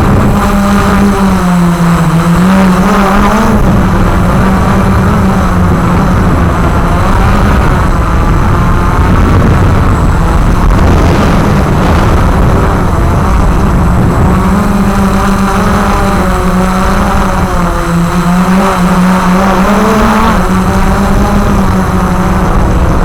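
Walker QR X350 Pro quadcopter's motors and propellers running in flight, a steady buzzing whine whose pitch wavers up and down with the throttle, over a constant low rumble.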